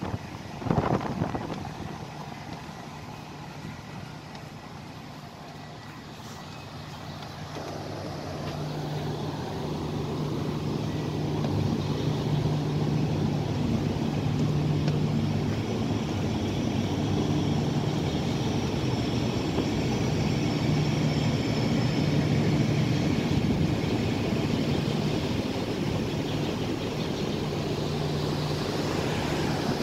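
A sharp thump or two about a second in, then a cruise ship's deck machinery, ventilation fans, running as a steady low hum that swells up over the next several seconds and holds.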